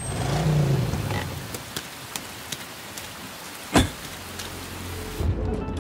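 Steady rain falling on pavement, with a brief low rumble near the start and a single sharp knock a little before the end. Near the end the rain stops suddenly and a steady indoor hum takes over.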